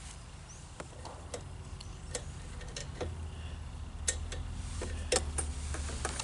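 Irregular sharp clicks and taps, about eight of them, from pliers and a plastic cable fitting being worked by hand, over a low steady hum.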